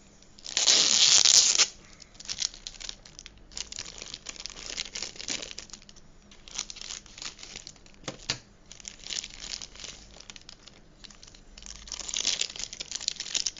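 Thin clear plastic bag crinkling and rustling as hands pull it open and handle a raw beef burger patty inside. The loudest crinkling comes in a burst within the first two seconds, with another denser spell near the end.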